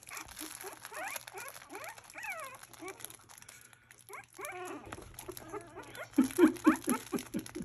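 Newborn Havanese puppies squeaking and whimpering: thin cries that slide down in pitch, then a run of louder, lower short cries from about six seconds in.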